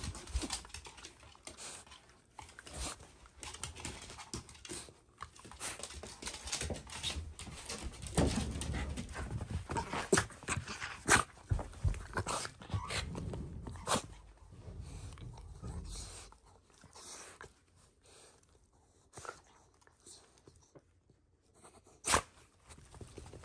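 Shiba Inu being petted and mouthing a hand, panting and snuffling amid rustling and many short clicks of handling and movement. It grows quieter in the last several seconds, with one sharp click near the end.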